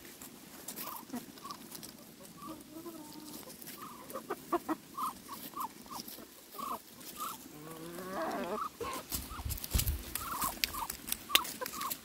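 Muscovy duck giving short, soft calls over and over, with a longer sweeping call about two-thirds of the way through. A few sharp clicks are mixed in.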